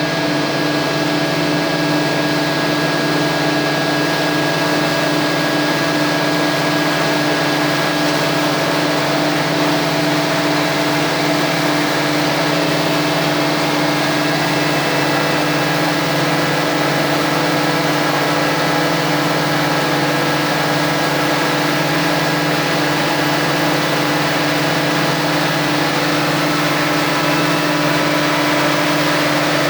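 Rotary veneer-peeling lathe running with a steady, unbroken machine drone and a constant low hum.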